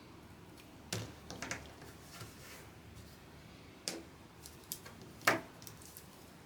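Irregular clicks and taps of small parts being handled during keyboard assembly: a few separate sharp clicks, a quick cluster about a second and a half in, and the loudest tap about five seconds in.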